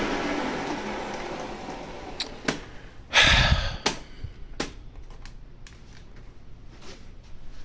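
Hoover Legacy vacuum cleaner's motor winding down after being switched off, its hum falling in pitch and fading over the first second or so. Then scattered light clicks and one louder clattering knock about three seconds in.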